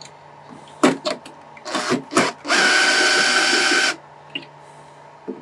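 Cordless drill/driver with a cut-off Allen key bit driving a screw: a few short clicks and knocks, then the motor runs steadily with a held whine for about a second and a half and stops.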